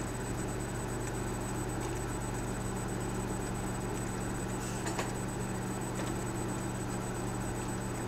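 Microwave oven running with a steady electrical hum and fan noise, and a faint click about five seconds in.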